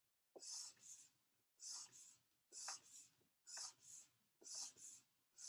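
Faint scratching of a stylus drawn across a drawing surface in short strokes, about one a second, each a quick double scratch.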